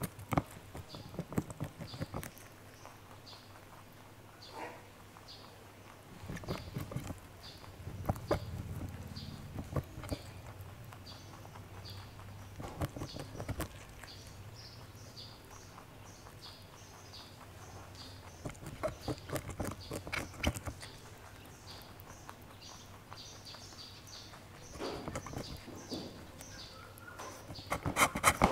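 A rabbit chewing raw cauliflower close to the microphone: bursts of rapid, crisp crunching bites separated by short pauses.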